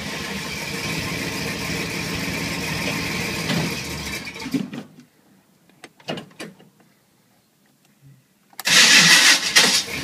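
1986 Chevrolet K5 Blazer's 350 V8, its Quadrajet carburetor half plugged and its gas bad, running rough and then dying about four and a half seconds in. After a few faint clicks, the starter cranks it again loudly near the end, on a damaged flywheel.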